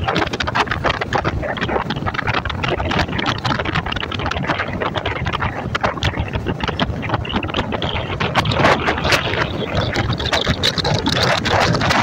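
Wind rushing and buffeting against the microphone of a moving Yamaha motorbike, over the bike's running engine and road noise.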